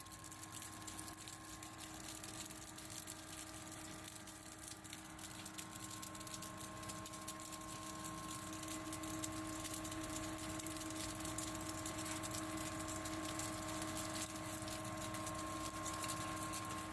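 Water-cooled flake ice machine plant running: a steady machine hum with several held tones from the Bitzer piston compressor and machinery, under a dense fine crackle throughout, getting a little louder from about eight seconds in.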